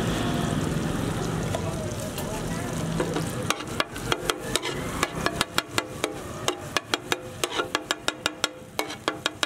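Vegetables sizzling on a hot iron tawa under a scraping metal spatula. A little over a third of the way in this gives way to rapid clacking, several strikes a second, as the spatula chops and turns the onions, tomatoes and chillies against the griddle.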